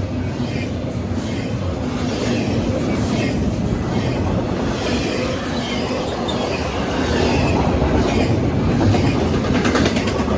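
CSX intermodal freight train rolling past at speed, a steady rumble of wheels on rail with a quick run of wheel clicks near the end.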